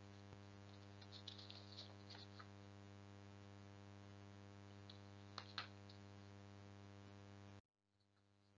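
Near silence: a faint steady electrical hum on the recording with a few soft clicks, the clearest pair a little past halfway, then the sound cuts to dead silence near the end.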